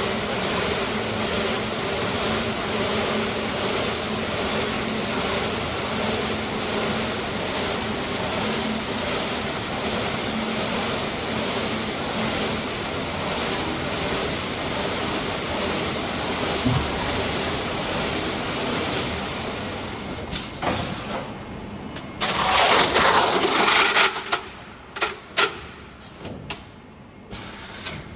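Automatic tape slitting and rewinding machine running with a steady mechanical whir and a faint hum. After about twenty seconds it slows and quietens, then there is a loud hiss of air lasting about two seconds, followed by several sharp clunks and knocks.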